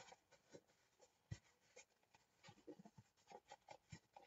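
Near silence with faint handling sounds of craft tools and materials on a tabletop: scattered light clicks and taps, with a soft thump about a second and a third in and another near the end.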